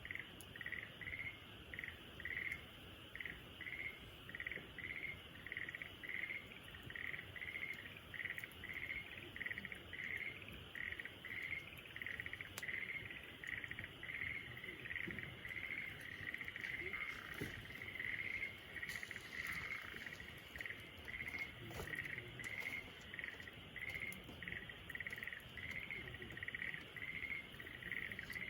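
Crickets chirping in a steady rhythm, about two chirps a second, over a faint steady hiss, with a few soft crackles of a wood fire here and there.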